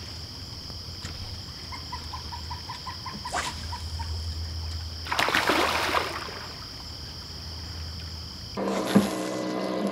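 Evening riverside ambience with steady high insect chirring. About two seconds in comes a quick run of about eight pulsed calls, and about five seconds in there is a splash lasting about a second. Near the end the sound cuts to a different, lower hum.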